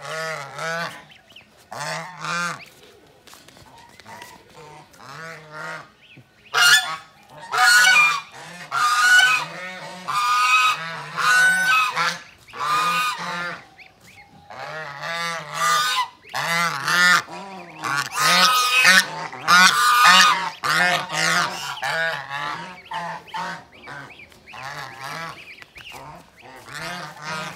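Domestic geese honking loudly and repeatedly, harsh calls in runs from two or more birds that overlap, loudest in the middle stretch. It is the aggressive honking of geese guarding their goslings and charging at a person.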